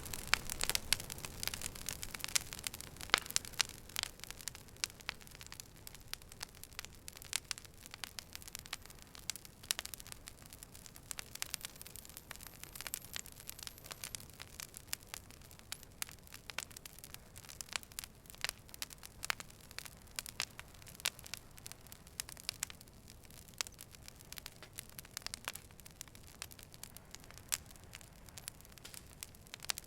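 Fire burning, with frequent irregular sharp crackles and pops over a low steady hiss.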